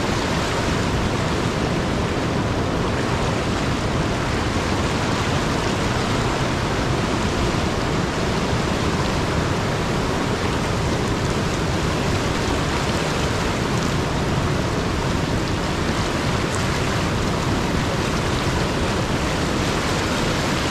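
Steady rushing of flowing river water, an even noise that holds at one level throughout.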